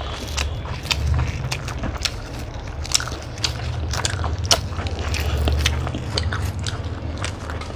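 Close-miked chewing and biting of egg rolls, with irregular sharp clicks and crackles over a steady low hum.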